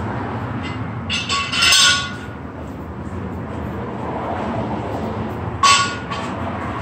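Metal clinking and clanking as metal equipment is handled: one longer burst about a second in and a sharper clink near six seconds, each with a brief metallic ring.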